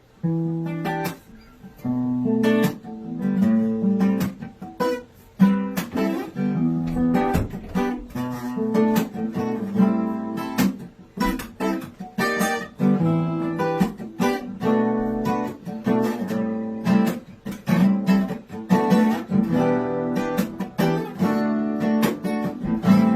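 Acoustic guitar playing an instrumental introduction, plucked and strummed chords in a steady rhythm.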